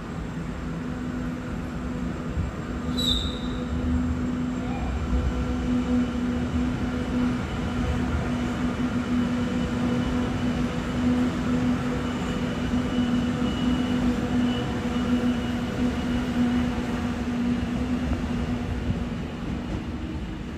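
A train running through the station, with a steady rumble and hum. A brief high squeak comes about three seconds in.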